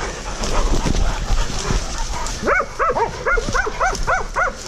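Hog dogs barking rapidly at a caught hog, a run of short sharp barks about four a second from about halfway in. Before that, footsteps crash through dry grass and leaves.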